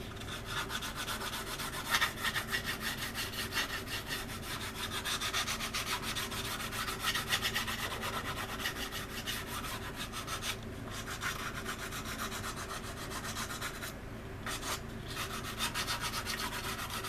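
Hand sanding of a resin model-aircraft wing: quick back-and-forth rubbing strokes, with two short pauses about ten and fourteen seconds in.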